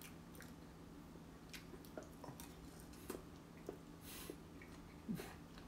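Faint chewing of a mouthful of strawberry, with scattered small mouth clicks and a short soft hiss about four seconds in, over a steady low hum.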